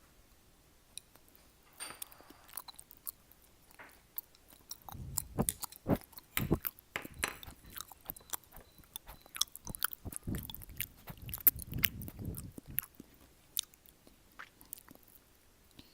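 Close-miked chewing of a chocolate snack: a stream of wet mouth clicks and smacks, busiest about five to seven and again ten to thirteen seconds in.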